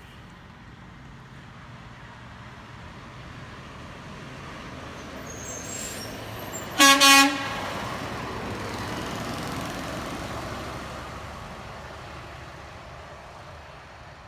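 Garbage truck driving past, its engine and road noise swelling and then fading away, with two quick honks of its horn about halfway through.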